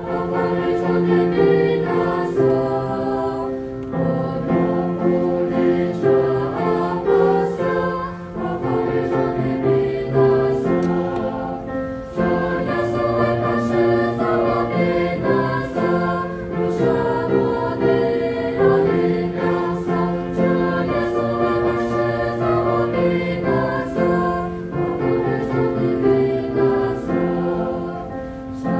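A choir singing a hymn in harmony, phrase by phrase, with held chords and brief breaths between phrases.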